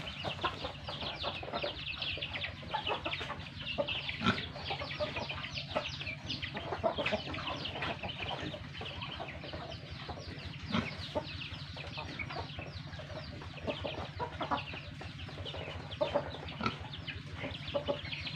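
A flock of backyard chickens clucking and chirping, many short calls overlapping without pause.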